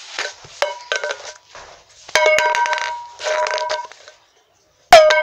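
Pringles can being knocked and handled, its metal end ringing after each knock: a few light clicks early, a louder knock about two seconds in that rings for over a second, and the loudest knock near the end.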